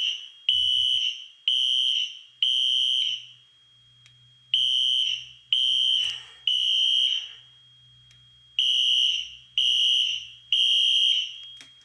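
Fire alarm horns sounding in sync in a temporal-3 pattern, the standard evacuation signal: three short, high-pitched beeps, then a pause of about a second and a half, repeated three times. The alarm is in progress after a pull station was activated.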